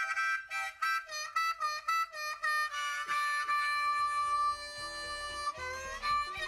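Background music: an instrumental melody of quick short notes, then one long held note through the middle, with low bass notes coming in past halfway.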